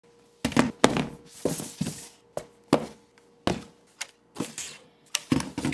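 Plastic drone gear and boxes being handled and set down on a wooden table: a string of about a dozen knocks and clacks, with a brief rustle about one and a half seconds in.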